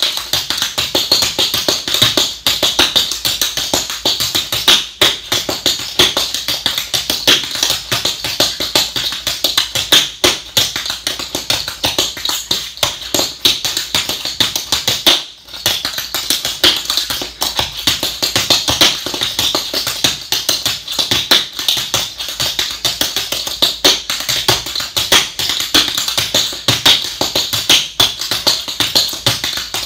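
Clogging shoes' metal taps striking the floor in a fast, unbroken run of rhythmic tapping, with a brief break about halfway.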